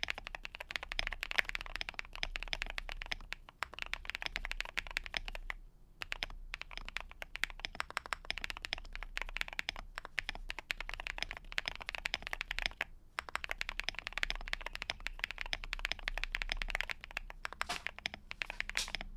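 Rapid typing on a Monsgeek M1 aluminium mechanical keyboard with Green Jacket tactile switches: a dense run of clacking keystrokes, broken by a few brief pauses.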